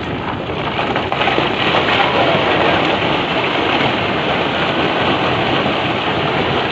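A landslide debris flow of wet stones and mud sliding down the slope: a steady, dense rushing rattle of rocks tumbling and grinding over one another, a little louder from about a second in.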